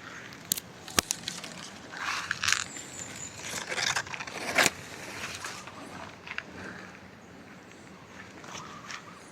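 Footsteps crunching and crackling on dry leaves, a few steps with sharp clicks in the first half, then quieter.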